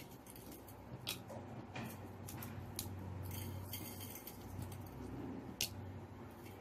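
Dried red chillies being torn by hand and dropped into hot oil in a pressure cooker pan: several sharp ticks and a short dry crackle in the middle, over a faint low hum.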